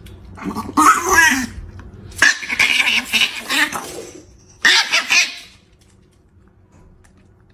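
A person's voice in three short bursts of laughing and exclaiming, without clear words.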